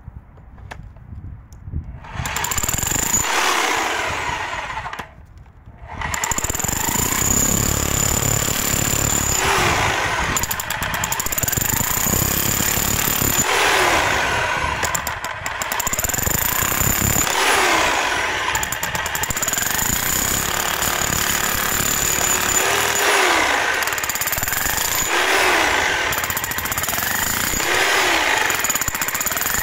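Parkside Performance PPBH 1600 A1 corded SDS-Max hammer drill in chisel mode, hammering a chisel bit into a concrete paving block and breaking it apart. It starts about two seconds in, stops briefly around five seconds, then runs on steadily with a high motor whine over the hammering.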